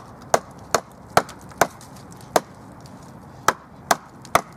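A wooden stick used as a hammer striking the steel Oregon stump vise, driving its spikes into a log: nine sharp knocks at about two a second, with a pause of about a second midway. The vise is sitting close to a knot in the log, which keeps it from going in.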